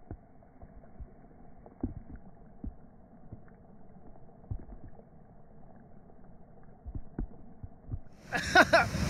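Heavy raindrops landing on lake water, heard muffled as scattered soft thumps over a faint steady hum. About eight seconds in, a loud rushing of water cuts in suddenly.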